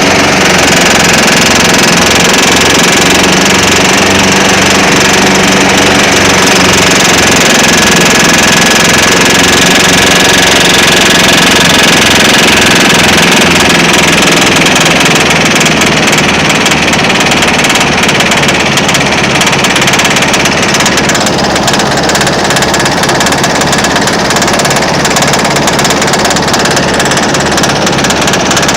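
John Deere EZtrak Z425 zero-turn mower engine running under load with a rapid, rhythmic knocking, a sign of an internal engine fault.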